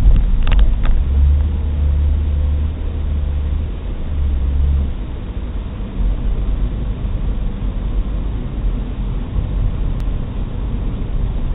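Car engine and road noise inside a moving car: a steady low rumble that is heavier for the first few seconds. A few short, sharp sounds come right at the start.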